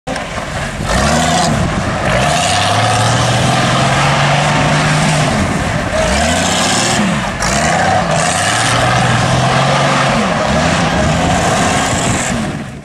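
Engine of a home-built three-wheeler trike revving hard as it slides in circles on loose dirt. Its pitch rises and falls again and again, and is held high for a second or two at a time.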